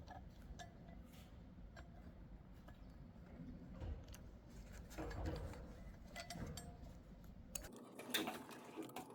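Faint clicks and light knocks of a board handle and its bracket being handled and fitted together, over a low hum that cuts off near the end.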